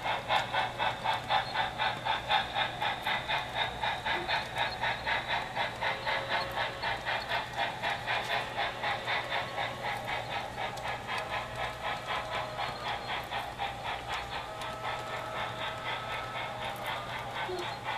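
Sound-equipped model of a D&RGW L-131 2-8-8-2 steam locomotive chuffing in a quick, even rhythm with a hiss, slowly fading as the train runs along the layout.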